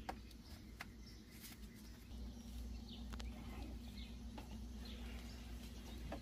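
A few faint, sharp clicks from the latches of a Jeep Gladiator's removable roof panels being undone, over a low steady hum, with faint bird chirps.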